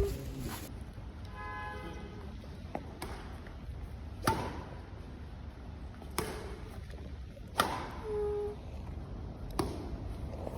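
Street background: a steady low rumble with two short horn beeps, one about a second in and one near 8 s, and several sharp clicks or taps between them.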